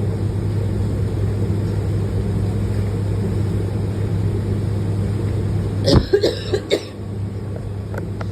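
A person coughs about four times in quick succession about six seconds in, over the steady low drone of the moving bus.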